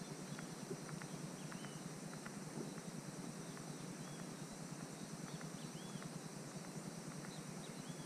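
Quiet open-water ambience: a low steady rush with faint short chirps high up and scattered light ticks.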